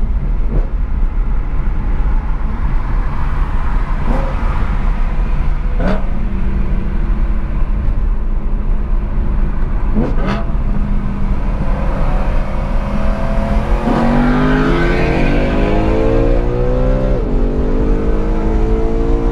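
A second BMW M3 E92's 4.0-litre V8, fitted with a modified medium-mod rear silencer, accelerating on the motorway, heard from inside a car over steady road rumble. After a few short blips, the revs climb for several seconds, drop at a gear change near the end and climb again.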